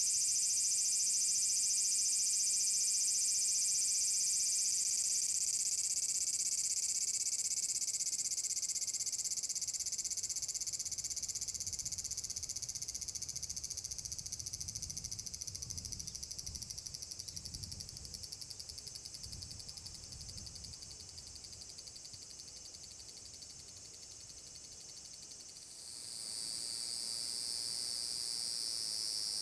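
Large brown cicadas (aburazemi) singing a continuous high, sizzling buzz. The song fades away slowly through the middle, and a fresh buzz starts suddenly near the end.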